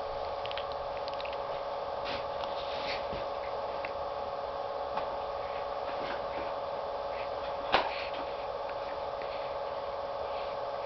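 Steady electrical hum, with a few faint clicks and rustles and one sharper click about eight seconds in.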